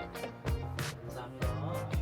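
Background music with a steady drum beat under held melodic tones.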